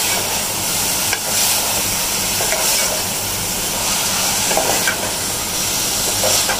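Chicken keema and chopped onions sizzling as they brown in an aluminium pot over a gas flame, stirred with a metal spoon that scrapes against the pot a few times.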